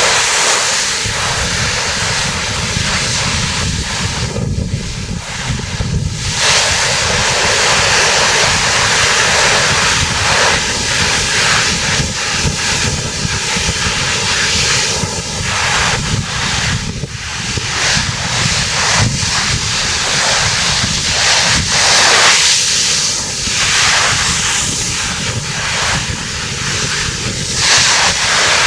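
Strong wind rushing over the microphone: a loud, rough roar that swells and eases in gusts, over a faint steady hum.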